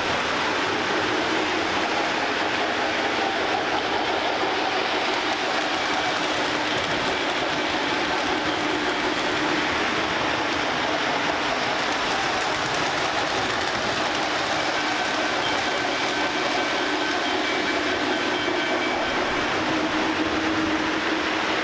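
Lionel O gauge model trains running on three-rail track: a steady whir and rumble of motors and wheels with a constant hum underneath.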